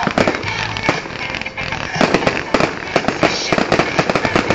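Fireworks going off in rapid volleys of bangs and crackling pops, easing for a moment about a second in and then picking up again. Recorded through an old mobile phone's microphone, so the sound is dull and lacks its top end.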